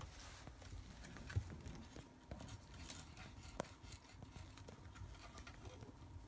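Rough collie puppies scrabbling over a small wooden box and the pet pads under it: soft pattering and rustling of paws, with scattered light knocks on the wood, two sharper ones about a second and a half in and three and a half seconds in.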